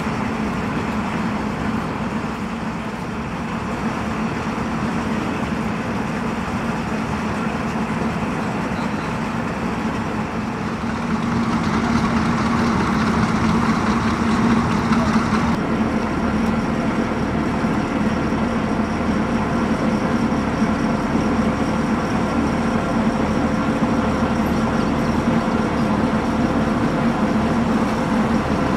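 Engines of a column of tracked military vehicles and off-road trucks running, a steady low drone. It grows louder about eleven seconds in and changes abruptly a few seconds later.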